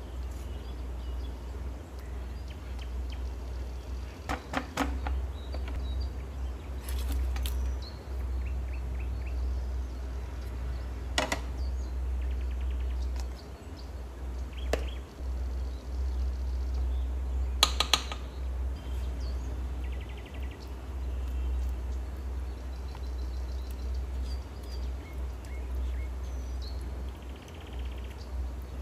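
Kitchen utensils clinking against cookware a handful of times over a steady low hum.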